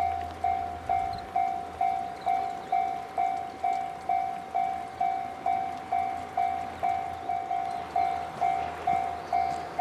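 Railway level-crossing warning bell ringing, a clear electronic clang repeating evenly about twice a second.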